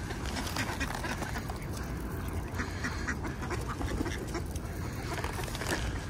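A crowd of ducks quacking and calling at once: many short calls overlapping.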